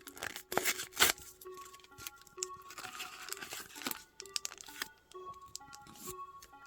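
A Magic: The Gathering booster pack's foil wrapper being torn open and crinkled in the hands, with sharp crackles, over soft background music.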